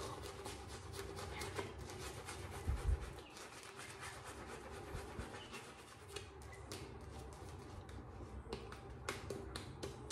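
Shaving brush working lather on the face: faint, quick crackling and scratching of the bristles through the lather, with a soft thump about three seconds in.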